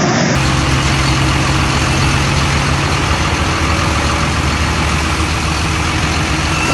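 A heavy engine running steadily at idle with a low hum, under a constant noise. One hum tone drops out about three seconds in.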